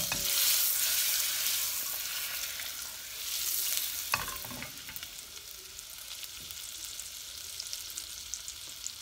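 Butter sizzling and crackling as it melts in a saucepan over a gas flame, the sizzle easing off after the first few seconds. One brief knock about four seconds in.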